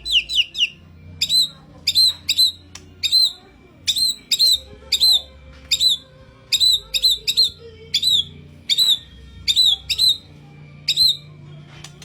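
White-rumped shama (murai batu) singing a short, sharp, hooked whistle note over and over. The notes come quickly at the start, then about twice a second.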